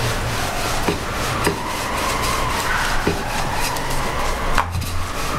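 Rolling pin rolling mandazi dough flat on a floured surface: a steady rubbing with about four sharp knocks.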